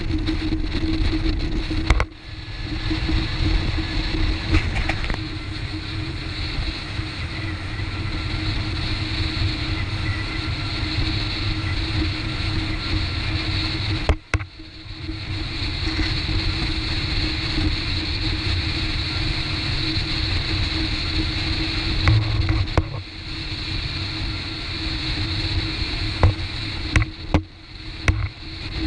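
Motorboat engine running at a steady drone under the rush of wind and churning river water as the boat runs fast over rapids. The sound drops out sharply and briefly a few times.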